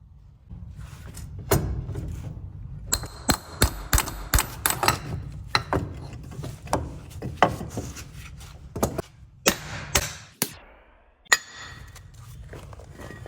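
Irregular metallic knocks and clanks of hand tools on metal during hub bearing work, some strikes ringing briefly, over a steady low hum.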